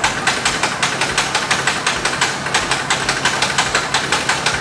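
Piston engine of a Cessna 310 running, with a rapid, even pulsing of about ten beats a second that starts abruptly.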